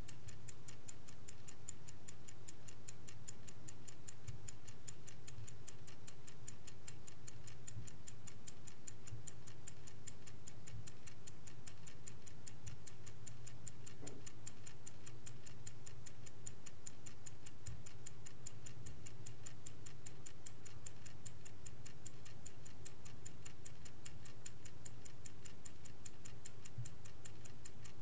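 Vintage Swiss-made Angelus clock ticking steadily in a fast, even rhythm, over a low steady hum.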